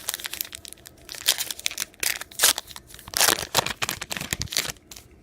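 Wrapper of a 2019 Topps Heritage baseball card pack crinkling and tearing as the pack is opened: a dense run of crackly rustles that dies away near the end.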